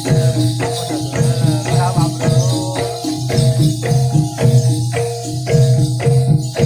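Live gamelan-style jaranan accompaniment: bronze metallophones strike a repeating pattern of notes on an even beat, with jingling percussion over a steady low tone.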